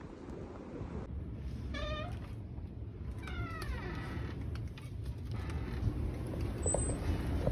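A cat meowing twice, two short high calls, the second sliding down in pitch, over a steady low rumble.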